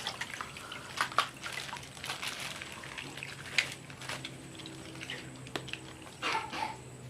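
Plastic toys and packaging being handled: scattered clicks, taps and rustles, with a louder burst of rustling near the end, over a steady low hum.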